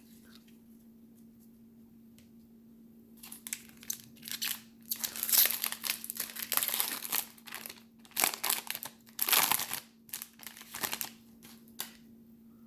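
Foil trading-card pack wrapper crinkling and tearing as it is handled and ripped open, in irregular crackly bursts that start about three seconds in and stop shortly before the end.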